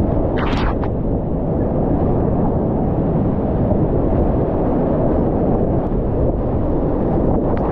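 Big whitewater rapids of a river at high flow, rushing loudly and steadily, heard close from a kayak in the current. A splash hits close about half a second in and again near the end.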